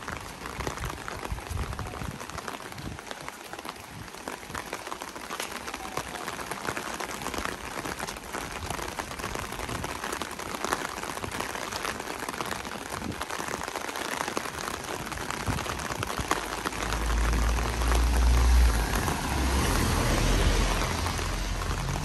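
Steady rain falling, with many small drop ticks. About three quarters of the way through, a deep low rumble swells in and becomes the loudest sound, easing off slightly near the end.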